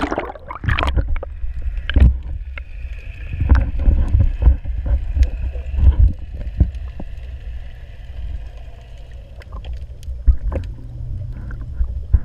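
Underwater sound picked up by a submerged GoPro: a heavy, muffled low rumble of water moving around the camera housing, broken by many knocks and splashes that come thickest in the first half.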